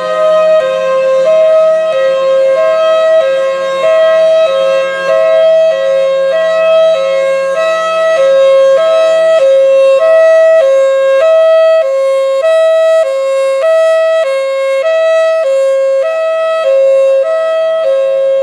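Federal Signal Thunderbolt 1003 outdoor warning siren sounding its hi-lo fire signal: two steady tones, high and low, alternating about every half second or so without a break.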